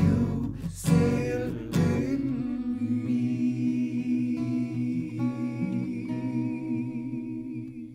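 Acoustic guitar and a man's singing voice: two last strummed chords in the first two seconds, then a long held note, hummed or sung, that fades away near the end as the song finishes.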